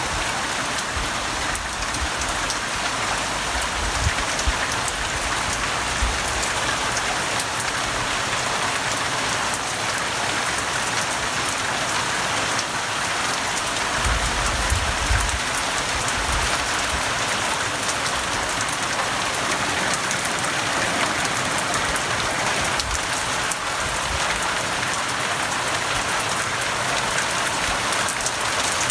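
Heavy rain falling steadily: a dense hiss of drops pattering on roofs, patio tiles and plastic garden chairs. A few brief low thumps come in the first half.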